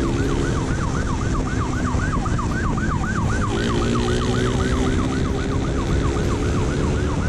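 Police motorcycle siren on a fast yelp, about five falling sweeps a second, over the steady running of a Honda police motorcycle's engine and rushing wind at speed.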